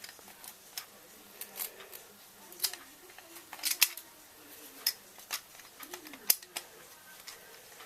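Scattered light clicks and taps of small plastic and metal parts and hand tools being handled while fitting an RC buggy's rear suspension arms. The two sharpest clicks come a little under halfway through and again about three-quarters through.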